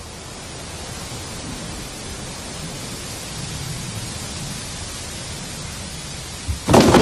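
A steady rushing noise that slowly swells, then a sudden loud clatter of knocks near the end.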